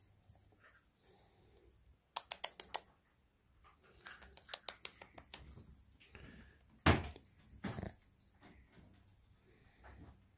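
A quick run of sharp clicks, then scattered clicks and two knocks, the first of them loud, over faint room noise.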